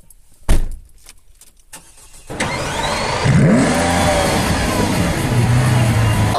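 A car door shuts with a thud about half a second in, followed by a few small clicks. About two seconds in the small hatchback's engine is started: the starter turns it over, the revs flare up and fall back, and it settles into a steady idle.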